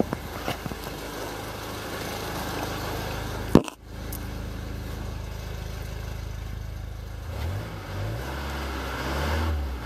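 Mitsubishi 4M41 3.2-litre four-cylinder turbodiesel idling steadily. A single loud knock, like a car door shutting, comes about three and a half seconds in, and from about seven seconds the idle turns into a deeper, pulsing rumble heard close to the tailpipe.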